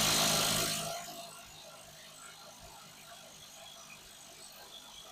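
Impact wrench with a 1.5-inch socket spinning out a truck's front camber bushing. It runs loud for about the first second, then keeps running more quietly under lighter load as the bushing works its way up out of its bore.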